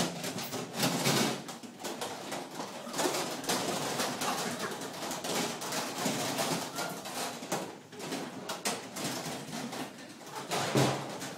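Galvanized metal trash cans and their lids being handled: one sharp clank right at the start, then a dense, irregular run of scraping and small knocks.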